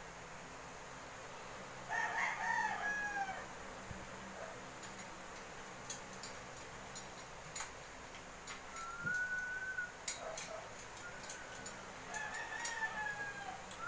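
A rooster crowing three times: about two seconds in, around nine seconds in, and again near the end. Faint clicks from eating sound between the crows.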